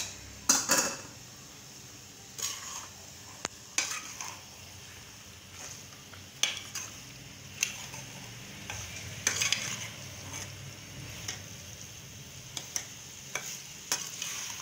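Slotted metal spatula stirring and scraping okra, onions and mutton around a metal pan, over a steady low sizzle of frying. The scrapes and knocks come irregularly every second or two, the loudest just under a second in.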